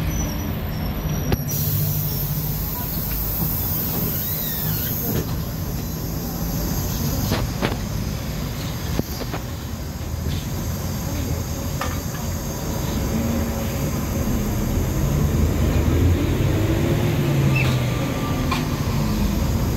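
City bus interior while driving: the engine drones steadily under road and body noise, with a few short rattles. About two-thirds of the way in, the engine note rises and then falls as the bus accelerates.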